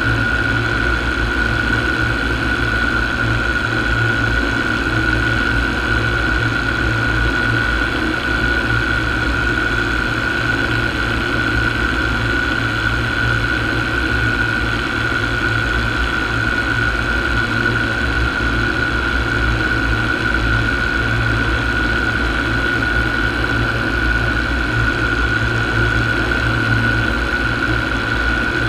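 Paramotor engine and propeller running steadily in flight: an unchanging drone with a constant high whine.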